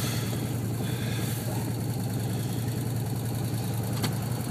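Can-Am Commander 1000 side-by-side's Rotax V-twin engine running steadily at low revs, an even low hum with no change in pitch. A single faint click near the end.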